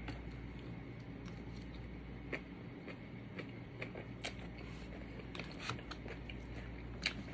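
Scattered soft clicks and light crunches from eating and handling food close to the microphone, over a low steady hum.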